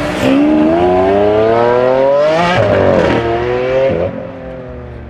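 A car engine accelerating hard: its pitch climbs steadily for about two and a half seconds, drops sharply, climbs again for about a second, then falls away.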